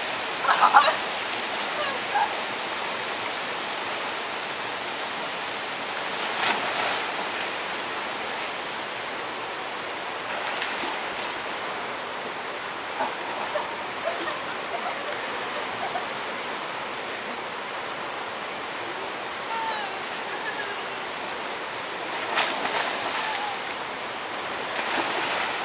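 Steady rushing of river water pouring over rocks into a pool, broken a few times by short splashes from swimmers.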